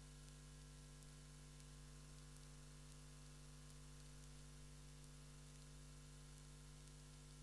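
Near silence: steady electrical hum and hiss on the audio line, with a faint tick about every second and a third.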